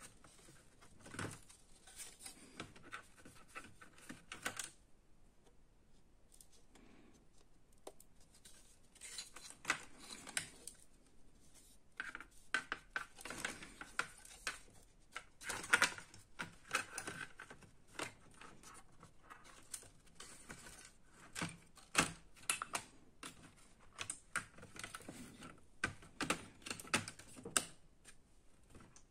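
The Acer Extensa EX2519 laptop's motherboard being fitted by hand into its plastic base: irregular clicks, taps and scraping of the board against the plastic. There is a quieter spell about five seconds in, and the sharpest knocks come about two thirds of the way through.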